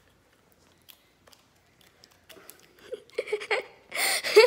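A girl giggling in short breathy bursts, starting about three seconds in and loudest near the end, after a near-quiet stretch with a few faint clicks.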